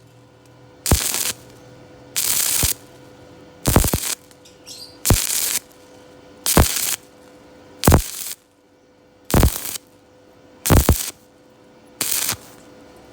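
Electric arc welding up a vertical joint with a 2 mm electrode. The arc crackles in short bursts about every second and a half as it is struck and broken again, nine times over. A faint steady hum runs between the bursts.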